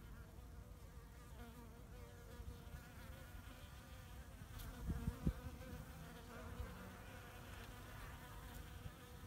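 Bees buzzing close to the microphone, a steady hum that wavers in pitch. There are a couple of low thumps about five seconds in.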